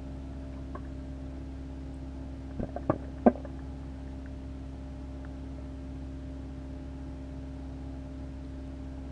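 Steady low mains hum of reef aquarium pumps and equipment. About two and a half seconds in comes a quick run of four or five sharp clicks, the last one the loudest.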